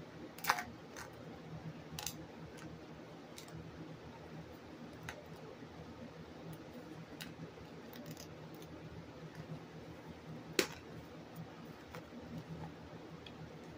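Small clicks and crinkles of duct tape being wrapped and pressed around rock-filled plastic Easter eggs, with two louder sharp snaps, one just after the start and one about three-quarters through.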